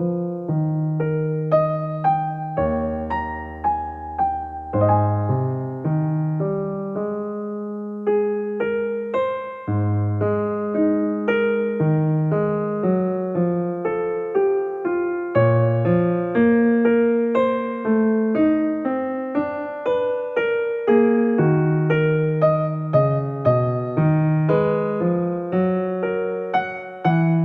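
Background music: a solo piano, sounding like an electric piano, playing a gentle melody over chords.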